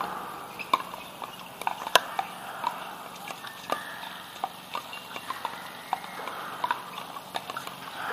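Pickleball paddles striking a plastic ball in rallies: a run of sharp pocks at irregular intervals, the loudest about two seconds in.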